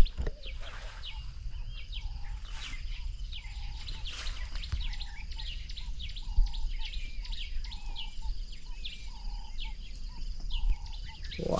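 Outdoor bird chorus: many small birds chirping and whistling in short high notes, with one low call repeated about once a second. Under it runs a faint steady high insect hum and a low rumble on the microphone.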